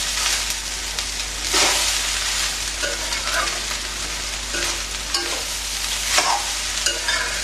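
Rice sizzling as it is stir-fried on high flame in a metal kadhai, with a metal spatula scraping and turning it against the pan; two stronger scrapes come about one and a half seconds in and near the end.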